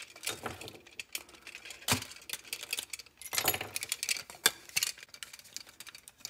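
Plastic and metal parts of a headphone headband clicking and rattling in the hands as it is worked apart, with rustling handling noise between several sharp clicks; the loudest come about two, three and a half and four and a half seconds in.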